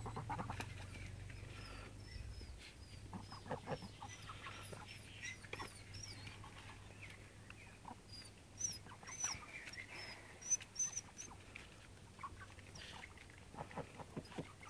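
Faint sounds of a flock of white domestic ducks feeding: scattered soft calls and short clicks, with many high short chirps throughout.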